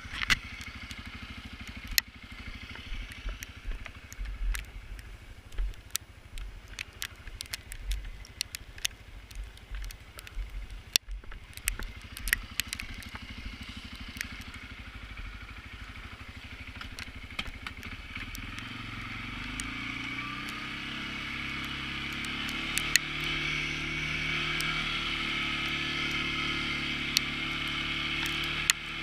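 CFMoto CForce ATV engine running at low speed with scattered sharp clicks, then rising in pitch and getting louder from a little past halfway as the quad speeds up.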